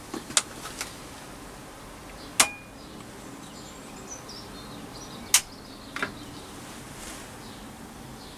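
A few sharp clicks or knocks over a steady low hiss, the loudest about two and a half and five seconds in; one rings briefly like a light metal tap. Faint high chirps sound in the background.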